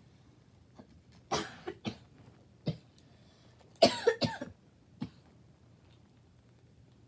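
A young girl coughing several times in short bursts. The loudest cough comes about four seconds in.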